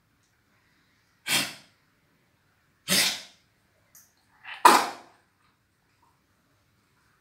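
Dog making choking sounds: three short, harsh bursts about a second and a half apart, the third the loudest. The choking is put down to a cold.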